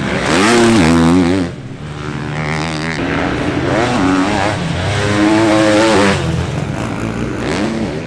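KTM 250 SX-F four-stroke single-cylinder motocross engine revving hard under racing throttle, its pitch repeatedly climbing and dropping. It is loud for the first second and a half, falls off sharply, builds again to a second peak around five to six seconds in, then eases off.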